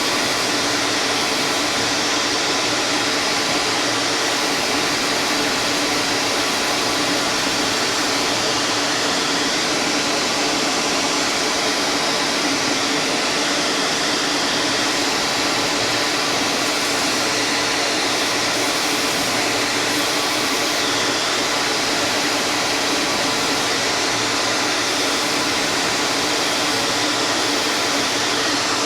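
An electric shop machine running steadily: an even whir with a faint hum, unchanging throughout.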